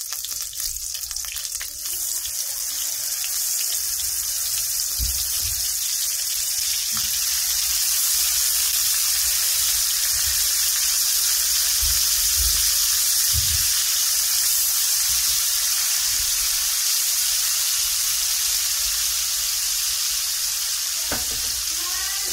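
Swai fillets frying in hot olive oil and butter in a skillet: a steady sizzle that grows louder a few seconds in as the seasoned fillets go into the fat, with a few faint low knocks.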